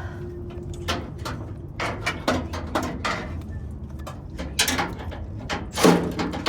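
Hand tools at work on a pickup truck's front end: a string of irregular clicks and knocks, growing louder and busier near the end.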